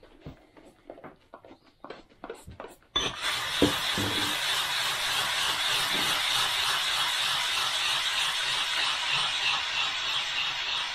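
Oil sharpening stone scraped back and forth on a 120-grit DMT diamond plate wetted with Windex, grinding the dish out of the stone's face to flatten it. A steady gritty scraping starts about three seconds in; before that, a few short squirts and clicks.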